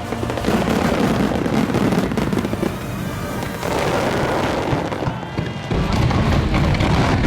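Aerial fireworks bursting and crackling in quick succession, heavier and louder from about six seconds in.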